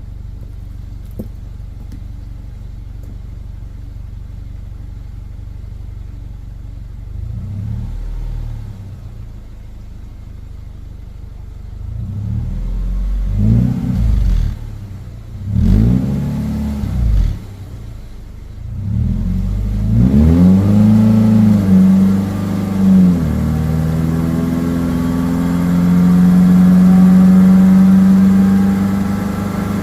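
Subaru Outback engine running in gear with its wheels spinning off the ground, the throttle pressed several times so the revs rise and fall, then held at a steady higher speed from about two-thirds of the way in. The run-up is to bring out the noise of a worn wheel bearing, which the owner suspects is on the passenger side.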